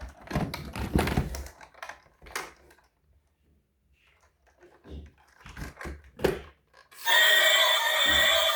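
Plastic toy vehicles being handled: irregular clicks, knocks and thunks. About seven seconds in, a battery-powered toy's electronic sound effect starts loud, a dense run of steady electronic tones.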